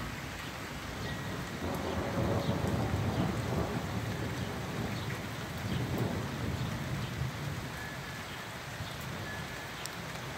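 Steady rain falling, with a low roll of thunder that builds a second or two in and slowly fades away.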